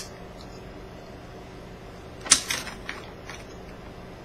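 Zippo lighter's metal lid clacking: one sharp metallic click about two seconds in, followed by a quick rattle of smaller clicks as the lighter is flipped and handled.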